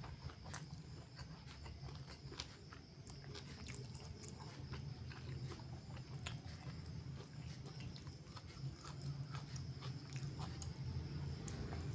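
Close-miked chewing of spicy chicken liver and gizzard: irregular wet mouth clicks and smacks over a low steady hum.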